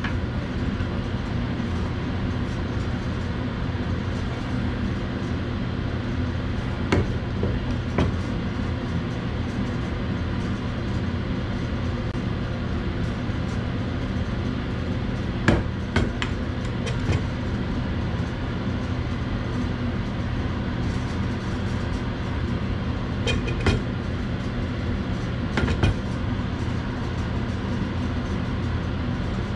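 A steady mechanical drone with a low hum runs throughout, with a few sharp metallic clicks and knocks as a hand-held plastisol injector is pushed into and handled against aluminium bait molds.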